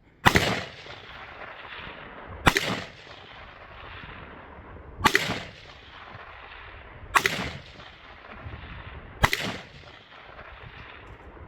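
Five rifle shots from an AR-15, fired at a steady pace about two seconds apart, each followed by a short echo.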